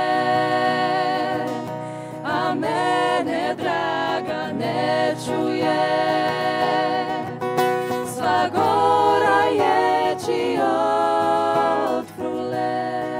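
Women's vocal trio singing a Bela Krajina folk song in close harmony, several voices sustaining notes together in phrases with short breaths between them.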